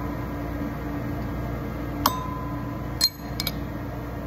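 A hammer tapping a steel pin punch to drive a roll pin into a roller bolt on a Ski-doo secondary clutch: a few sharp, ringing metal taps, one about two seconds in and three close together about a second later. A steady heater hum runs underneath.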